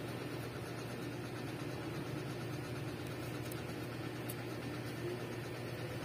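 Steady low background hum of a running motor, unchanging throughout.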